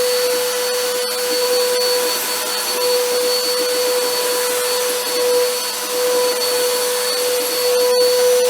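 Vacuum cleaner running steadily: an even motor whine over rushing air.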